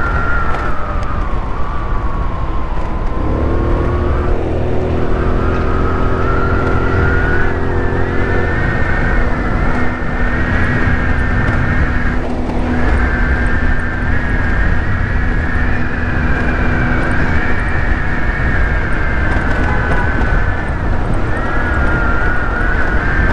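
GY6 scooter running along the road under a steady low rumble, with a high whine that drops as it slows a couple of seconds in and climbs again as it picks up speed. A lower steady hum joins about three seconds in and fades out past the middle.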